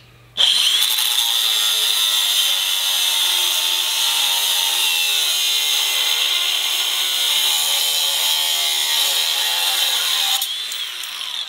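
Angle grinder cutting through 3/16-inch flat steel bar: it starts abruptly and gives a steady, loud, high-pitched grinding whine, then winds down near the end as the cut finishes.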